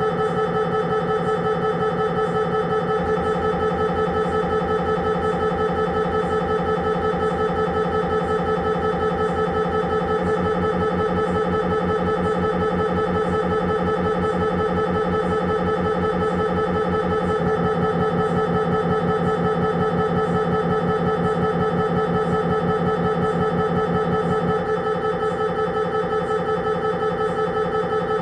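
Siemens Magnetom Avanto 1.5 T MRI scanner's gradient coils buzzing through an imaging sequence: a steady, fast-pulsing drone made of several fixed tones. The pattern shifts slightly about every seven seconds.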